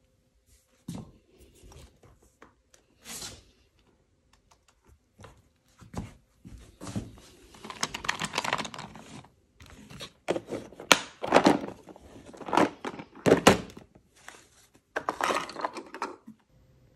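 Art supplies being handled and packed: pencils and crayons clattering in a clear plastic box, with irregular clicks and knocks, the loudest a few in quick succession past the middle, and stretches of rustling.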